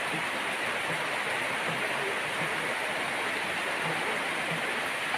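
Rain falling steadily, an even hiss that does not let up.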